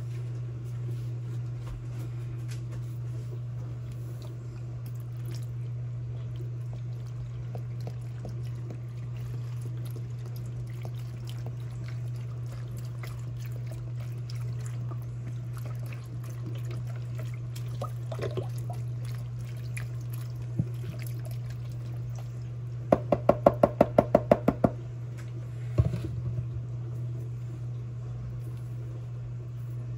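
Beef broth poured from a carton into a slow cooker full of vegetables, over a steady low hum. Near the end comes a quick run of about a dozen sharp clicks, then a single knock.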